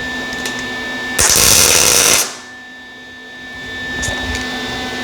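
A MIG welder laying a single tack weld: a loud crackling buzz lasting about a second that cuts off abruptly, over a steady electrical hum.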